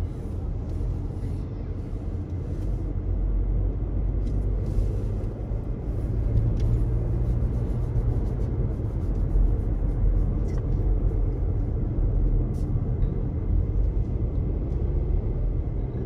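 Steady low rumble of a car's tyres and engine on the road, heard from inside the cabin, growing a little louder about six seconds in.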